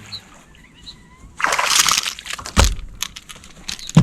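A loud splash on the water's surface about a second and a half in, lasting about half a second, followed by a low thud, a run of light clicks and a second thud near the end.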